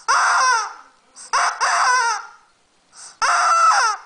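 Rubber chicken squeaky toy squawking three times as it is squeezed, each loud squawk under a second long with a falling pitch.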